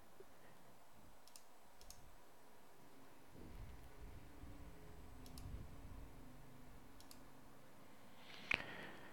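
Faint computer mouse clicks, a few spread over several seconds, with one sharper click near the end, over quiet room tone.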